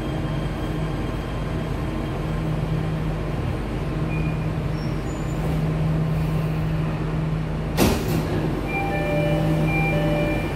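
Jakarta MRT train car interior: steady running noise with a low hum as the train comes to a stop, a single sharp burst about 8 s in, then a repeating door chime of short beeps as the doors open.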